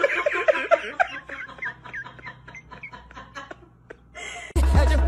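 A person laughing in a quick run of short chuckles that tapers off over about three seconds. Loud music cuts in near the end.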